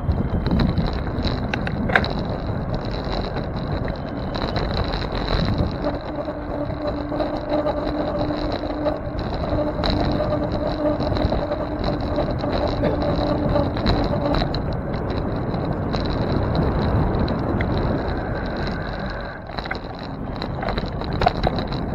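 Rushing wind and tyre noise on a bicycle-mounted camera riding along city streets, with traffic around it. A low steady hum runs from about six to fourteen seconds in, and a thin high whine lies under everything.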